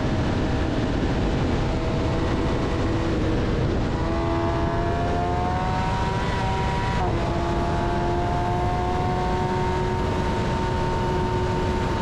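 Kawasaki ZX-10R's inline-four engine under way beneath a loud steady rush of wind and road noise. The engine note climbs, drops sharply once as the rider shifts up, then holds steady.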